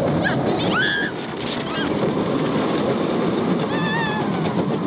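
Roller coaster riders shrieking and whooping in short high calls over the steady rushing noise of the moving ride, with a longer wavering shriek about four seconds in.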